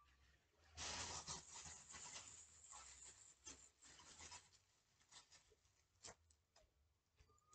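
Dry rustling and scratching of handled paper, dense for about three and a half seconds from about a second in, then thinning into a few light scrapes and taps.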